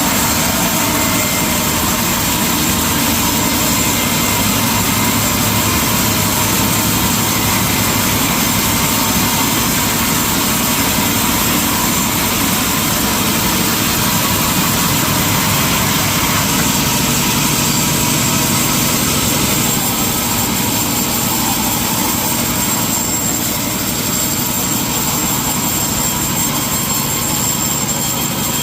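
Sawmill machinery running steadily: a loud, even mechanical din with a constant high-pitched whine. The low hum of the drive changes pitch about halfway through.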